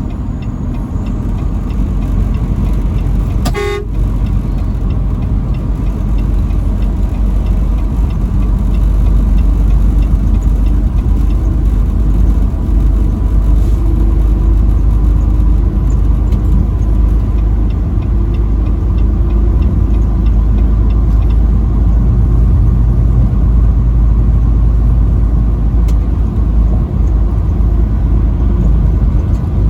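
Truck driving at highway speed, with a steady low road and engine rumble. About three and a half seconds in comes one short horn toot.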